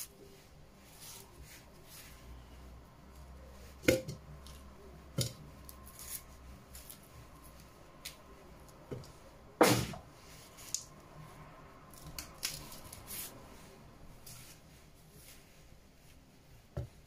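Scattered knocks and soft clicks of kitchen handling as banana pieces are put into a plastic blender beaker, the loudest knock about ten seconds in.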